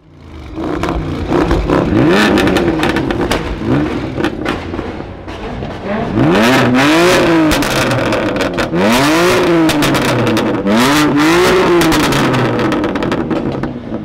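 BMW M4 F83's twin-turbo straight-six through an Akrapovic exhaust, free-revved several times while parked. Each rev rises and falls, some in quick double blips, with sharp pops and crackles on the overrun.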